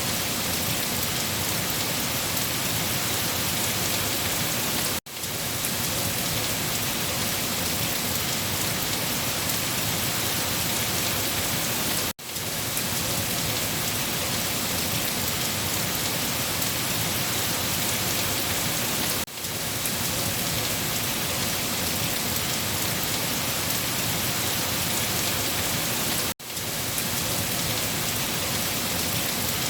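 Steady, heavy rain falling on a surface. The sound cuts out for an instant about every seven seconds, four times, then resumes at once.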